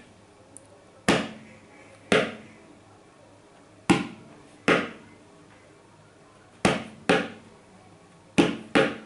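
Tabla dayan, the small treble drum, struck with the fingertips on its black centre patch: eight short strokes in four slow pairs, each dying away quickly. This is the two-stroke 'Tere' of the Tere Kete Ta pattern, played slowly for practice.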